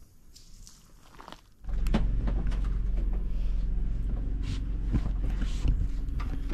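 Corded electric fillet knife running with a steady motor hum while fish are filleted. The hum starts abruptly about a second and a half in.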